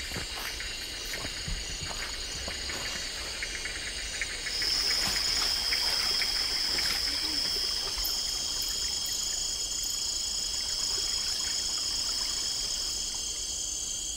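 Forest insects droning in several steady high-pitched tones, with a louder, high whine joining about four and a half seconds in; a few faint clicks underneath.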